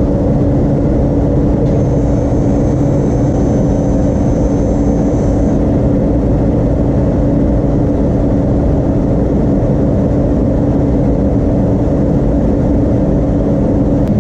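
A machine running at a steady speed with a loud, even drone and a constant hum. There is no change in pitch or level.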